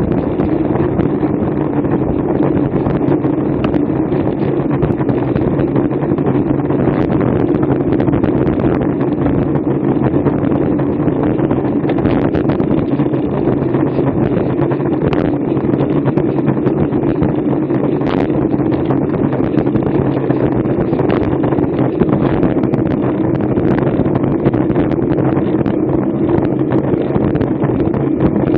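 Steady wind rush over a bike-mounted action camera's microphone, mixed with tyre and road noise from a racing bicycle at speed, with a few faint clicks from road bumps.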